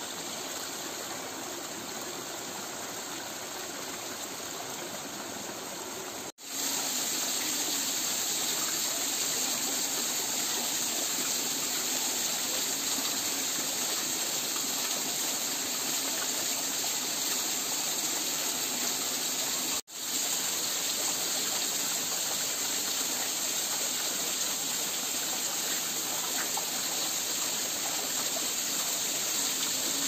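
Small waterfall splashing down between boulders into a rocky stream pool: a steady rush of falling water. It cuts out for an instant twice, about six seconds in and again near twenty seconds, and is louder after the first break.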